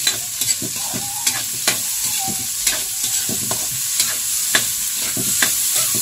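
Onion, garlic, ginger and tomato sizzling in hot oil in a wok, with a steady hiss, while a spatula stirs them, scraping and tapping against the metal pan in sharp clicks about every half second.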